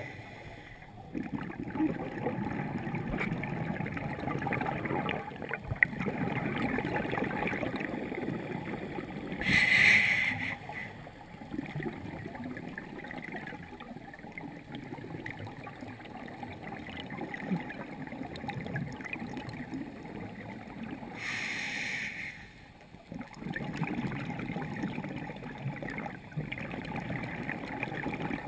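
Water noise picked up by an underwater camera: a muffled, uneven rush. Two brief louder hissing surges come, about ten seconds in and again a little past twenty seconds.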